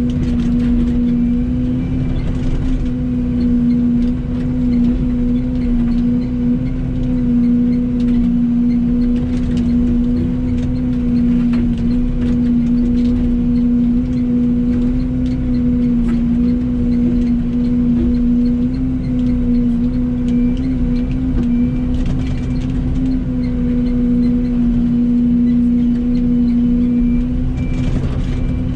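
Yanmar diesel excavator running steadily at working throttle, a constant engine and hydraulic hum over a low rumble, with a few faint knocks as it works.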